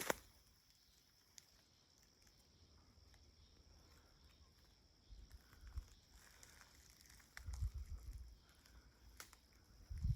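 Faint footsteps on a dirt trail: a few quiet seconds, then soft, uneven steps from about halfway through, with a couple of light clicks.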